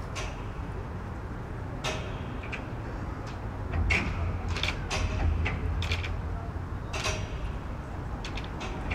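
Ambient field recording: a steady low rumble with scattered clicks, creaks and knocks, the loudest about four to five seconds in.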